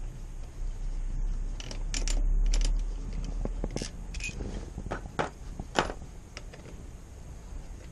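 Small metal brake parts and tools clinking and tapping against each other as the worn rear brake pads are worked out of the caliper, a scattered run of sharp clinks through the middle of the clip. A low rumble of handling noise swells briefly about two seconds in.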